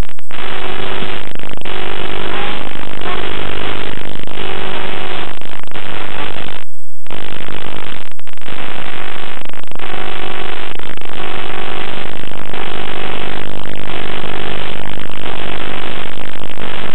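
Loud, harsh distorted noise with a steady buzz beneath it, held at full level throughout, cutting out completely for about half a second around seven seconds in.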